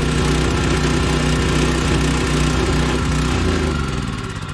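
Small backhoe's engine running steadily, then dropping in pitch and fading near the end as it winds down.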